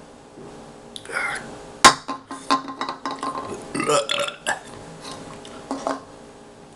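A man belching at length, right after draining a can of hard iced tea lemonade in big gulps: one long drawn-out belch with several breaks, and a sharp click about two seconds in.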